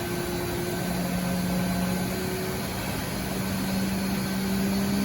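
2017 Haas VF-2SS vertical machining center's 12,000 RPM spindle spinning up to its top speed and holding there, a steady hum that rises slightly in pitch about a second in and then stays level.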